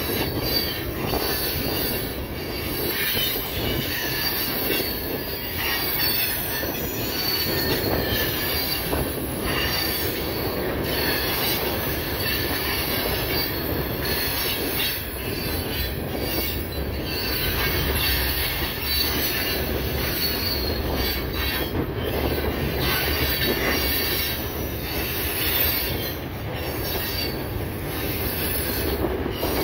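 Freight train's boxcars and covered hoppers rolling past close by: a steady rumble and rattle of steel wheels on the rails, with irregular clanks.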